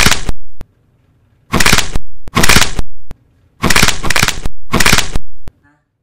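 Exaggerated neck-cracking sound effect: a run of loud, crunching cracks, each under a second long and mostly in close pairs, with short silences between.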